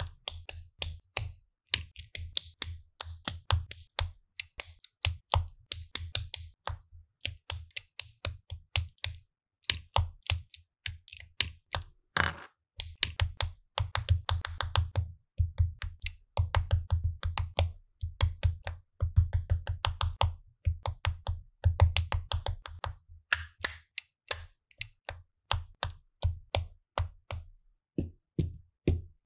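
Plastic LEGO bricks being handled and pressed together, a quick, irregular series of sharp clicks and taps with soft handling thumps under them.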